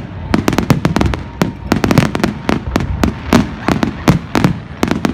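Aerial fireworks display: a rapid, unbroken string of sharp bangs and crackles, several a second, each trailing a low rumble.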